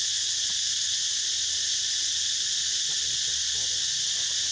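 A steady, high-pitched chorus of insects shrilling continuously in the forest.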